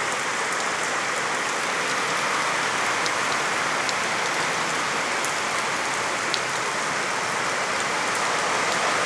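Heavy rain falling steadily, with a few sharper ticks of single drops striking close by.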